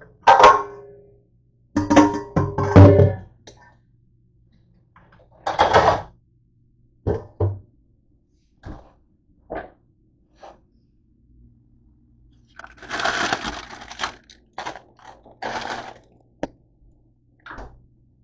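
Stainless steel cookware clanking against a dish rack, the metal ringing briefly after the hits, followed by scattered knocks, clicks and about a second of rustling as kitchen things are handled. A faint steady hum runs underneath.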